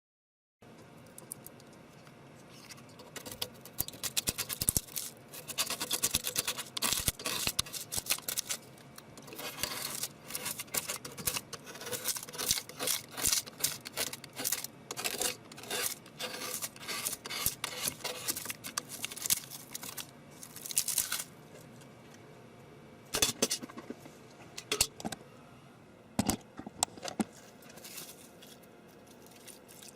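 Irregular sharp clicks and scrapes of small hard objects, coming in clusters, with a quieter stretch about two-thirds of the way through.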